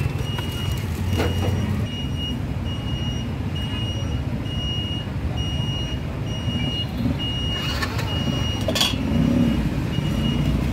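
Steady low rumble of motor traffic, with a high electronic beep repeating evenly throughout, like a vehicle's reversing alarm. A couple of sharp knocks come near the end.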